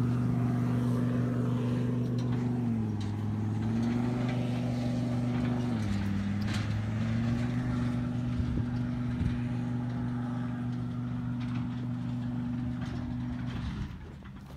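Ford Ranger pickup's engine revving up hard and running at steady high revs under load as it tows a Bobcat through sand. The pitch dips briefly twice, then the engine fades out near the end as the truck pulls away.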